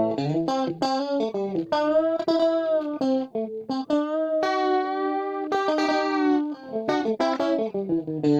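Electric guitar through a Plethora X3 chorus effect and a Bugera 333XL valve amp with light overdrive, playing a lead line of picked single notes. Several notes are bent and held with vibrato, and the line ends on a sustained note.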